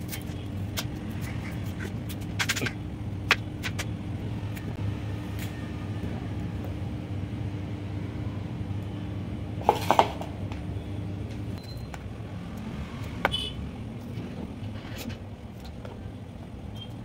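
A few sharp knocks and clicks of onion and knife handling on a plastic cutting board, the loudest pair about ten seconds in, over a steady low hum that carries a held tone which stops about two-thirds of the way through.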